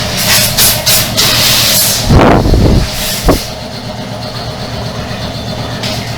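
Air compressor running steadily while compressed air is blown into a rust-clogged water pipe. Several sharp hisses of escaping air come in the first two seconds, then a loud rushing blast about two seconds in and a short burst a second later.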